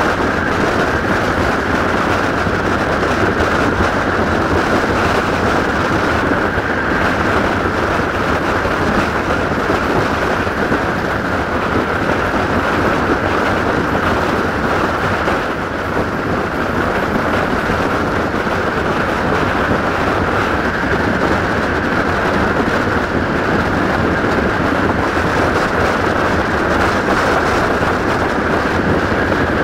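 Passenger train carriages running at speed: steady rumble of wheels rolling on the rails with a constant high hum, and wind rushing past an open carriage window.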